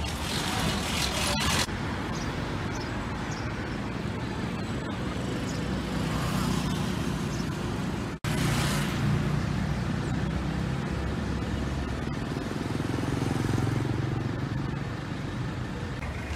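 Street traffic noise: motorcycles and other vehicles passing with engines running. It cuts out briefly about halfway through.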